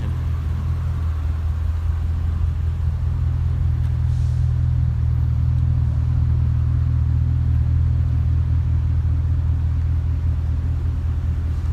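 Holden Commodore SS-V's V8 engine idling steadily with a low rumble.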